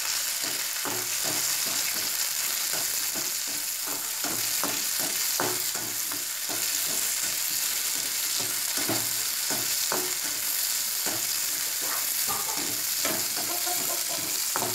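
Adamant creeper (pirandai) stems, shallots, garlic and dried red chillies frying in oil in a metal kadai, sizzling steadily. A metal ladle stirs and scrapes against the pan in quick repeated strokes, a few a second. The creeper is being sautéed until its raw smell goes.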